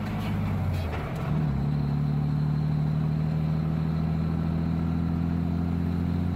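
Truck engine running under power, heard inside the cab. About a second in, the engine note changes and settles at a new steady pitch as the Caterpillar 7155 semi-automatic transmission is shifted by its small knob, with no clutch pedal used.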